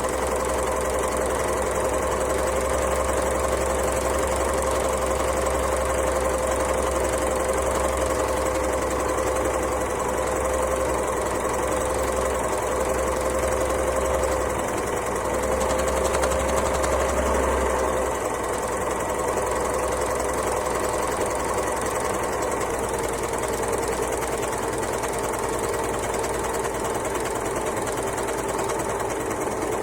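Overlocker (serger) sewing machine running continuously at speed with a steady, even hum. It dips briefly about halfway through, and runs at a slightly lower pitch over the last third.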